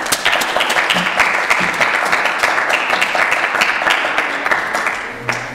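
Audience applauding, a dense crackle of many hands clapping that dies away near the end.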